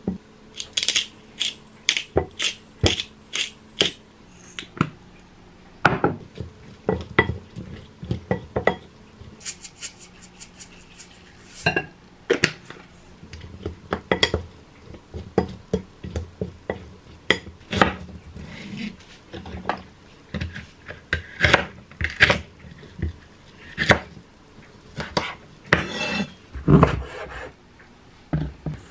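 A wooden spoon tossing cucumber pieces in a glass bowl, with repeated, irregular sharp clinks and knocks of the spoon against the glass. Near the end comes one heavier, duller knock.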